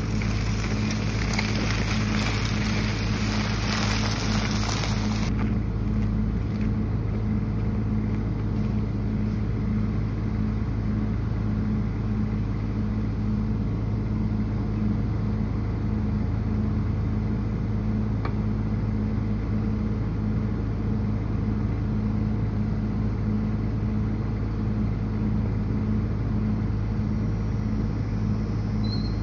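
Mini excavator's diesel engine running steadily, a low drone that pulses evenly. A bright hiss lies over it for the first five seconds or so, then cuts off suddenly.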